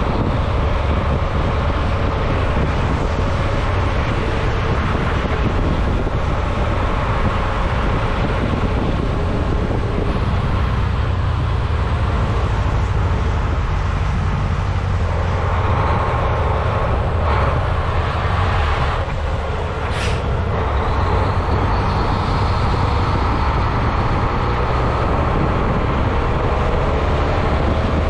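A Mack dump truck's diesel engine running under way, a steady low rumble mixed with road noise, heard from a camera mounted outside the cab. There is a single sharp click about two-thirds of the way through.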